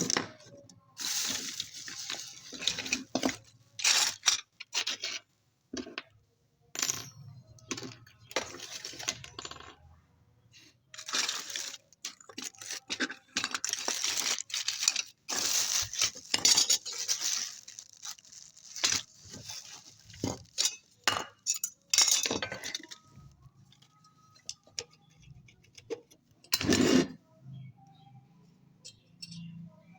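Small metal parts and hand tools clinking, tapping and scraping at an irregular pace, with sharp knocks among stretches of rasping. The sounds thin out to faint, scattered clicks over the last several seconds.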